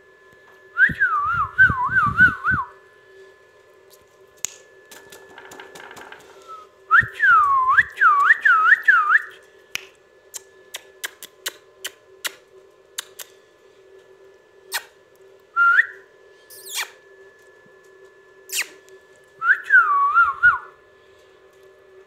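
Indian ringneck parakeet whistling in four short phrases, each a quick run of swooping notes, with a brief single note in between. Scattered sharp clicks fall between the phrases, over a faint steady hum.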